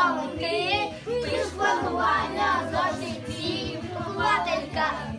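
Young children singing a song in Ukrainian over a music backing track with a stepped bass line.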